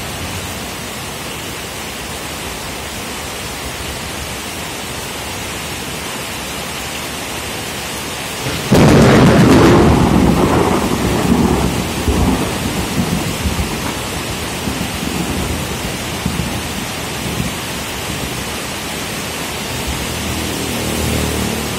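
Steady heavy rain, then about nine seconds in a sudden loud thunderclap that rumbles and fades over several seconds.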